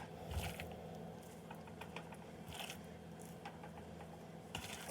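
Faint crackles and soft clicks of gloved hands handling seasoned raw chicken pieces and laying them into a pan, a few short ones scattered through, over a low steady hum.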